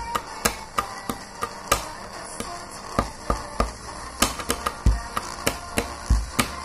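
Pen tapping: two pens struck and flipped against a wooden tabletop in a fast, drum-like rhythm of sharp clicks and knocks, with a few deeper thumps on the table as low beats.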